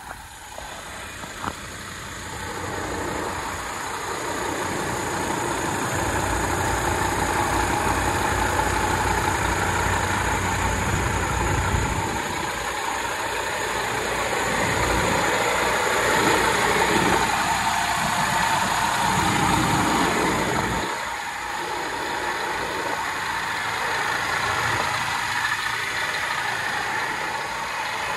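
Scania P230 garbage truck's diesel engine idling steadily, its low rumble growing and fading as the camera moves around the truck.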